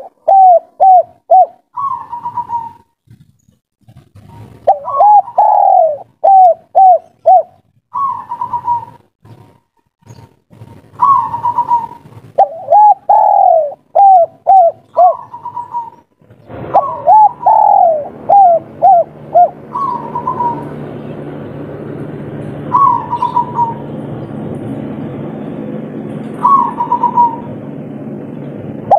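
Spotted dove (tekukur) singing its 'kuk 3' coo, the song given to call a female: repeated phrases of short rolling notes every couple of seconds. A steady low hum comes in about halfway through and carries on under the cooing.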